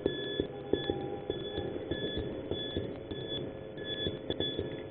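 Airsoft bomb app beeping on a phone: a short high electronic beep repeats at a steady pace, the signal that the bomb is armed and counting down. Scattered sharp clicks sound alongside it.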